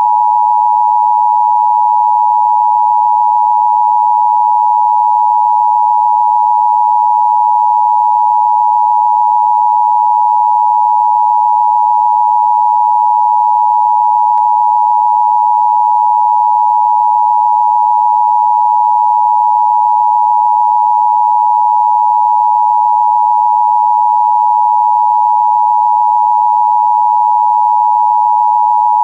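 Emergency Broadcast System attention signal: a loud, steady two-tone beep near 1 kHz, held without a break.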